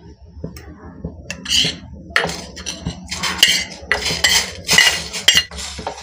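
A steel spoon scraping and clinking against stainless-steel vessels as hand-pounded spices are scraped from a bowl into a pot of water. Starting about a second in, there is a run of short scrapes and clinks with a metallic ring.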